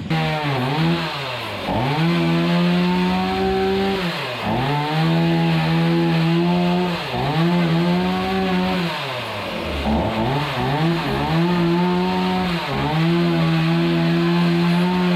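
Chainsaw cutting out a rotten timber beam. It runs at full speed, bogs down and picks up again every couple of seconds as the cuts are made.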